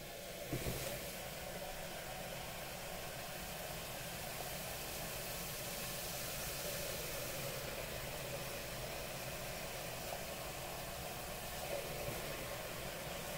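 Liquid nitrogen poured into copper LN2 overclocking pots at about −100 °C, boiling off with a steady hiss as the pots cool toward full pot. A short knock about half a second in.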